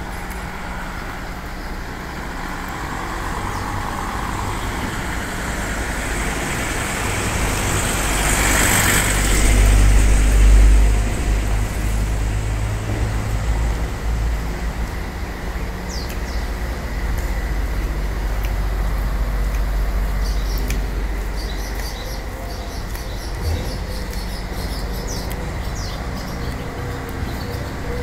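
Motor traffic on a town street, with a steady low rumble that swells to its loudest about ten seconds in and then eases. Birds chirp over it in the second half.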